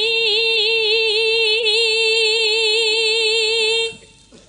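A sinden, a Javanese female singer, holding one long sung note with an even vibrato into a microphone. The note breaks off about four seconds in.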